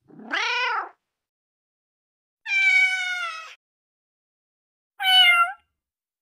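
Domestic cat meowing three times, separate meows with silence between: a short rising-then-falling meow at the start, a longer one of about a second in the middle, and a short higher one near the end.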